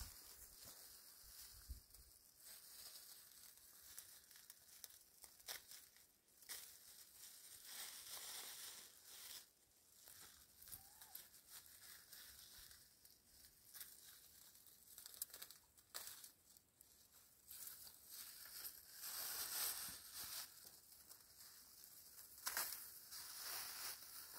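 Faint rustling and crinkling with scattered light clicks and taps, swelling briefly about eight seconds in and again near twenty seconds.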